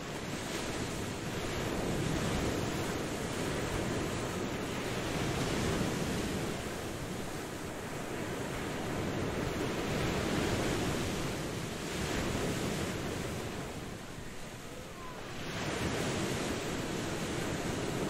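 Ocean waves washing onto a shore: a continuous rush of surf that swells and ebbs every few seconds, with a brief lull near the end before another wave surges in.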